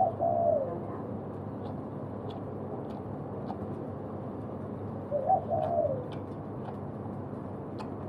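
A bird calling twice, about five seconds apart: each call is short and drops in pitch at its end, over a steady low hiss with faint ticking.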